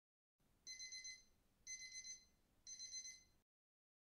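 Electronic alarm clock beeping: three short bursts about a second apart, each a rapid run of about four high beeps, faint.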